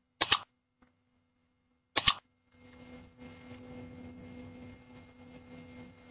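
Two sharp double clicks about two seconds apart, from hands working switchgear (a miniature circuit breaker and a motor protection circuit breaker) with a screwdriver. After the second click a faint steady hum begins.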